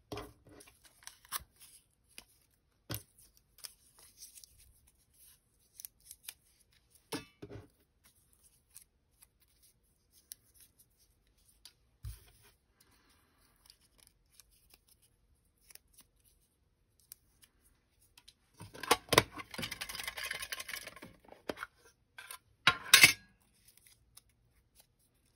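Paper handling: scattered light taps and rustles, then a burst of rustling and sharp crinkles near the end as a folded paper name slip is picked out and unfolded.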